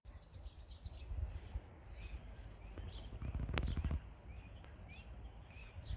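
Small birds chirping over a low outdoor rumble, with a quick high trill near the start. A single sharp click comes about three and a half seconds in, where the rumble is loudest.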